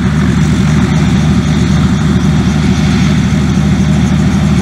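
Robinson R44 helicopter running steadily on the ground with its main and tail rotors turning: a loud, even engine and rotor drone.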